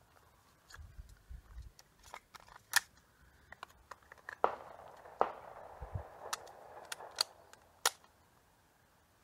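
Handgun fired in a steady string of a dozen or more shots, roughly two a second, with hits ringing on a steel target. The shooting stops about eight seconds in.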